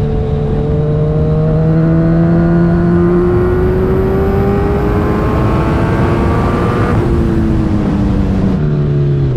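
Kawasaki Z1000's 1043 cc inline-four, fitted with KO Lightning aftermarket pipes, pulling under acceleration while the bike is ridden. The engine note climbs steadily for about seven seconds, then the revs fall away near the end, under a steady rush of wind noise.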